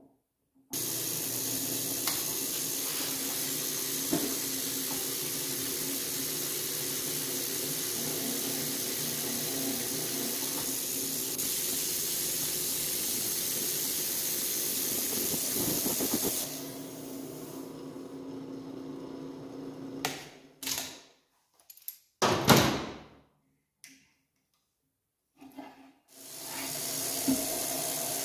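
Benchtop drill press running and drilling holes through steel plate, a steady hiss over the motor's tones. About two-thirds through the drilling stops and a few short sounds follow, one of them loud; the machine runs again near the end.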